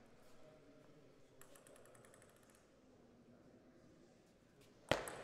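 A sharp crack near the end as a table tennis ball is struck on the serve, ringing on in the hall. Before it there is only faint hall sound with a brief patter of quick light ticks.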